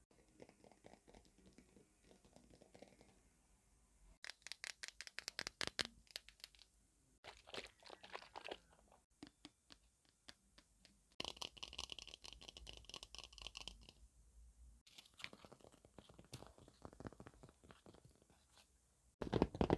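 A run of quiet, close-up ASMR trigger sounds, each lasting a few seconds before cutting sharply to the next: fast crunching, scratching and crinkling on small objects.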